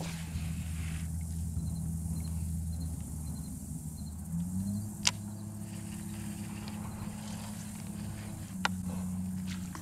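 A steady low motor hum that steps up in pitch about four and a half seconds in, with two sharp clicks, one near the middle and one near the end.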